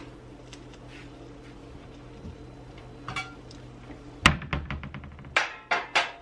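A plate clattering as it is set down on stacked metal baking pans: one sharp clack about four seconds in, then a quick rattle and a few more clacks near the end. A low steady hum runs underneath.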